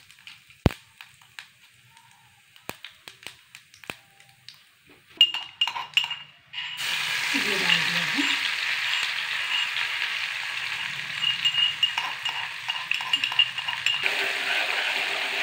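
Steel utensils and spice containers clinking a few times. About seven seconds in, hot oil and ghee with cumin seeds start sizzling steadily in a small kadhai.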